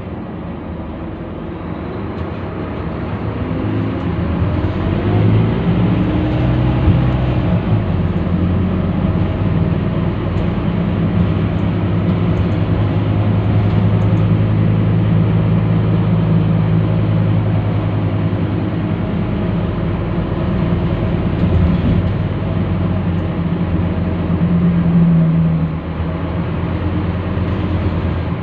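Scania K310UB city bus's rear-mounted diesel engine heard from inside the cabin: it builds up with rising pitch over the first few seconds as the bus pulls away, runs steadily under load, and eases off near the end.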